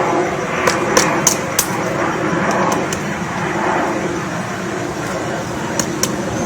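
A bird drilling at wood: sharp separate taps, a run of about four roughly three a second in the first two seconds and a few more near the end, over a steady rumble of traffic.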